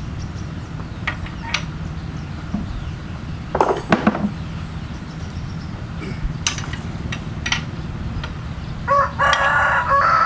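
A rooster crowing, loudest near the end, with a shorter call about four seconds in, over the steady low rumble of a hand tractor's Yanmar diesel engine.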